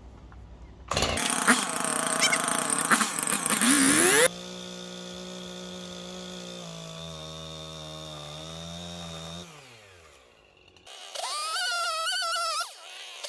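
Petrol chainsaw cutting through a thick old hardwood fence post for about three seconds, then running more quietly at a steady pitch before its engine note falls and dies away. About a second later the chainsaw runs up to a high, wavering rev again.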